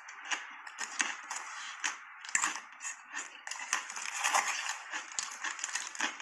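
Close-up chewing of a mouthful of soft shaved ice: rapid, irregular crunches, a few each second.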